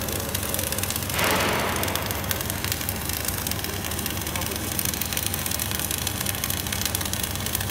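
Wire-feed welding arc on a mechanized welding carriage, crackling and hissing steadily over a low machine hum, with a louder surge of hiss about a second in.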